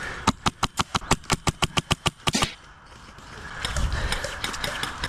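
MTW Billet HPA airsoft rifle firing a rapid string of about fifteen shots in roughly two seconds, about seven or eight a second, followed by a stretch of rustling noise.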